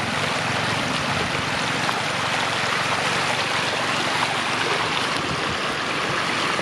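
Floodwater flowing steadily: a continuous rushing hiss of running water.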